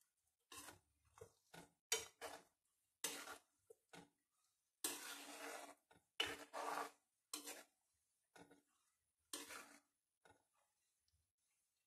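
Steel spatula scraping and knocking against a metal kadai as it stirs herbs and leaves in coconut oil, in a dozen or so irregular strokes, the longest about five seconds in.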